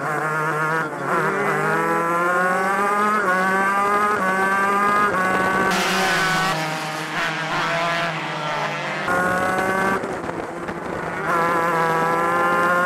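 Shifter kart two-stroke engines at racing speed: the pitch climbs repeatedly as the engine revs out and drops back in steps at gear changes and braking, with other karts' engines running alongside.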